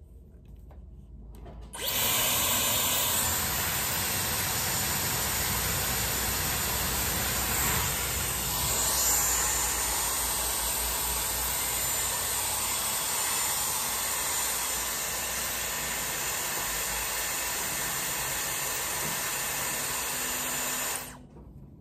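Dyson Airwrap styler blowing air through its curling barrel while a wound section of hair sets into a curl: a steady rush of air that switches on suddenly about two seconds in and cuts off about a second before the end.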